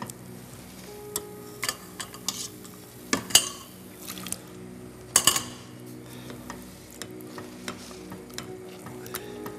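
Wooden spoon stirring a thick béchamel sauce in a stainless steel pot, scraping and knocking irregularly against the sides and bottom as the sauce is worked smooth, over a faint steady hum.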